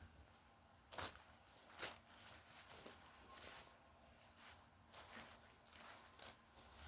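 Faint scattered handling noises: two sharper clicks about a second and two seconds in, then several softer rustles.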